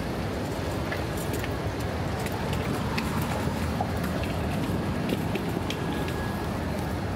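City street ambience: a steady hum of traffic with scattered light ticks and taps over it.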